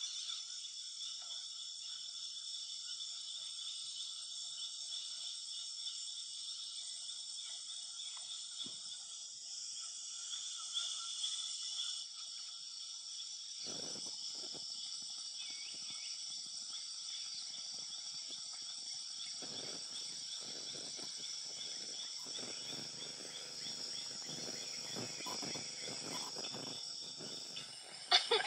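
Dense chorus of forest insects, a steady high-pitched buzzing and trilling. From about halfway, lower rustling sounds come in, and a few louder knocks and rustles follow near the end.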